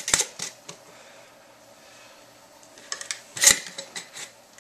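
Hot glass half-gallon canning jar handled through a cloth towel while its metal lid band is screwed down tight: a few light clicks and ticks, and one loud sharp knock about three and a half seconds in.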